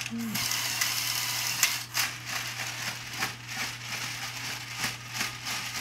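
Lego Technic tank driven through a multi-function gear train by a single Lego Power Functions large motor, whirring and rattling as the plastic gears and tracks drive it backwards, with many irregular clicks. The gearing puts a lot of strain and friction on the motor's output, so it labours a little.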